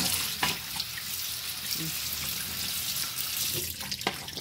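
Kitchen faucet running onto a gutted fish and plastic cutting board in a stainless steel sink, a steady splashing of water, with a few sharp knocks from handling the fish and board.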